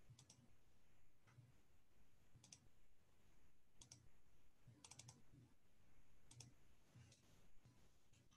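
Near silence with faint computer keyboard clicks, single or in short runs of three or four, about one a second.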